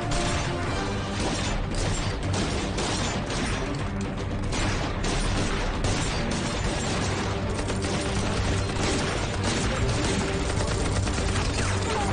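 Volleys of gunfire crackling continuously under a dramatic film score with steady low held notes.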